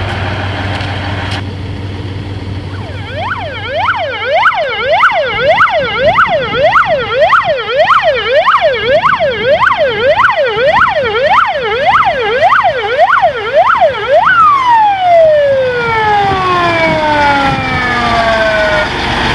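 Fire truck siren wailing fast, rising and falling nearly twice a second, then winding down in a long falling tone over the last few seconds as it is switched off. Before the siren starts, a truck engine runs at a low hum.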